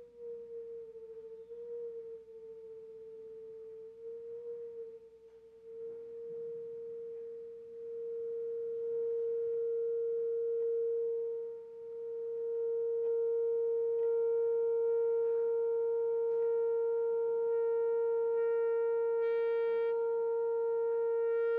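Loudspeaker playing a steady pure tone at about 462 Hz, tuned to a glass beaker's resonant frequency to shake it apart. The pitch drops slightly and settles at the start. The tone gets louder about a third of the way in and again after a brief dip, and grows harsher with overtones through the second half.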